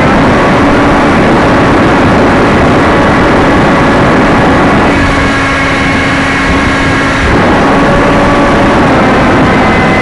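Loud wind rush over a small camera microphone on an electric RC plane in flight, with the plane's brushless motor and propeller humming faintly beneath it. The motor note changes and the rush eases a little about halfway through, then returns.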